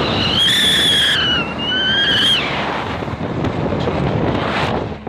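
Wind and road noise from a moving pickup truck hauling a boat strapped on its roof, with a high-pitched squeal lasting about two seconds near the start.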